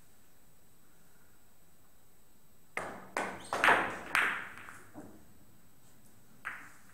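Billiard shot: the cue tip hits the cue ball about three seconds in, followed by a quick run of sharp clicks and knocks as the balls collide with each other and the cushions over the next two seconds, and one more click near the end.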